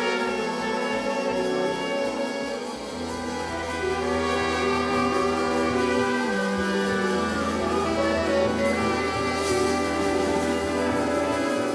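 A large improvising orchestra playing slow, held chords over a sustained low bass note, the harmony shifting about halfway through.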